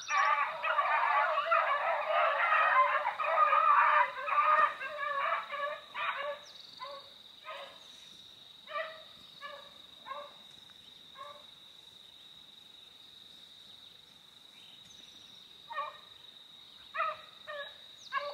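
A pack of beagles baying on a rabbit's trail. A dense chorus of overlapping hound voices fills the first four seconds or so, then single barks come at about one or two a second, pause, and pick up again near the end.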